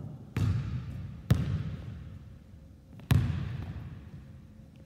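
Basketball bouncing on a hardwood gym floor: three hard single bounces at uneven intervals, each ringing on in the hall's echo.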